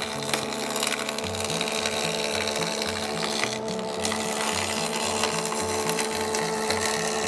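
Jointer running with freshly sharpened knives, edge-jointing a board of figured maple fed steadily across the cutterhead; the ripple grain tears out along the cut. Background music with a bass line plays underneath.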